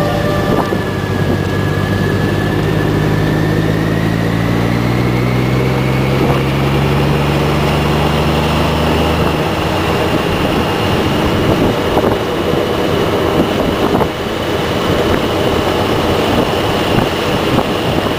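Touring motorcycle engine running at speed with wind rushing past, its note rising steadily for about the first nine seconds, then giving way to a rougher rush of wind and engine noise.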